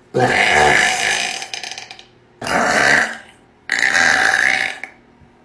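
A woman burping loudly three times in a row: a long drawn-out burp of about two seconds, then two shorter ones.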